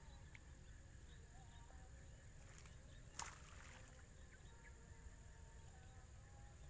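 Near silence: faint outdoor background with a low rumble, a steady high thin tone and a few faint short chirps. One brief sharp noise stands out about three seconds in.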